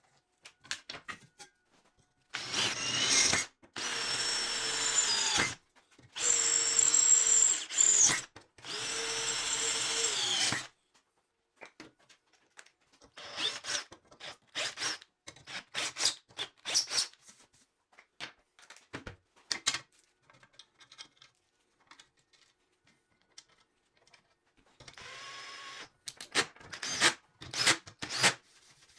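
Cordless drill boring into a steel tube, running at a steady pitch in four runs of one to three seconds each, each stopping sharply. Light metallic clicks and clatter follow as parts are handled, and near the end the drill runs again more quietly while driving screws into a steel rail.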